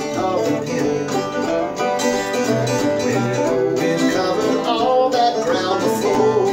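Acoustic guitar strumming and banjo picking together in an instrumental passage of a country-folk song.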